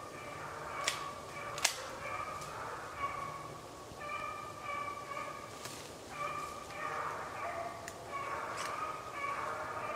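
Background music: held high notes that change every second or so, with a few sharp percussive hits, the strongest two in the first two seconds.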